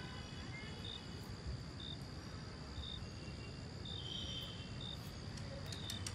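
Night ambience of crickets: a steady high insect trill with short chirps about once a second, over a low, distant rumble.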